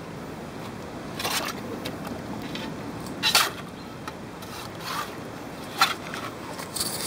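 Long-handled shovel digging into soil and small stones: four or five short scraping strokes a second or two apart, the loudest about three seconds in, as the ground at the pond edge is dug out and levelled.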